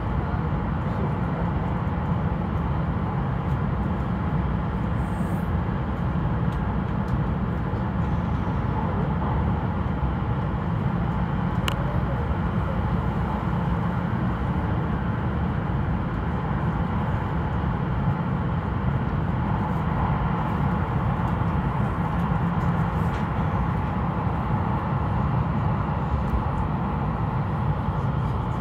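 Steady running noise of an E5-series Shinkansen train at reduced speed: an even low rumble of wheels on rail and rushing air. A single faint tick comes near the middle.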